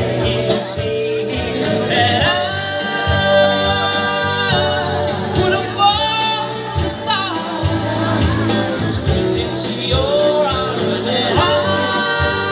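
Live band music at a stage: a singer holding long notes over a steady beat.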